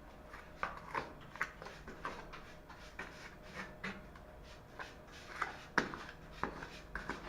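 A plastering tool scraping and tapping as gypsum plaster is thrown into a gap and packed in: a dozen or so short, irregular scrapes and knocks, the loudest about two-thirds of the way through.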